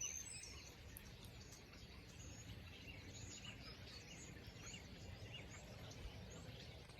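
A large flock of birds calling from a field, many short chirps and slurred notes overlapping without pause, over a faint low rumble.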